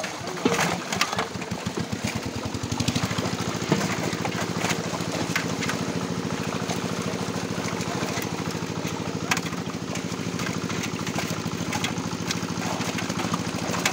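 A small engine running steadily, mixed with splashes and slaps from live fish thrashing in a crowded net as they are scooped out by hand.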